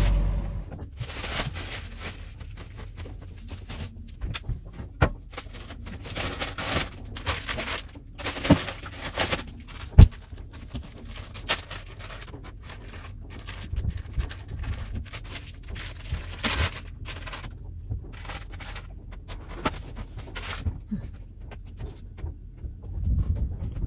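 Sandwich making at a kitchen counter: plates set down and plastic bread and meat packaging handled, making irregular clicks, rustles and knocks, one sharp knock about ten seconds in. A low steady hum runs underneath.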